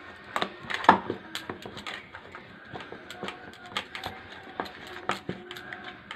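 Hand kneading warm maize-flour dough in a steel plate: irregular taps and knocks of fingers and dough against the metal, with the loudest knock about a second in.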